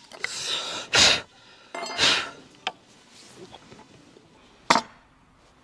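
A flat steel hand tool, file-like, scraped across a hardwood elm tenon held in a bench vise: three long rasping strokes in the first couple of seconds. A single sharp knock near the end.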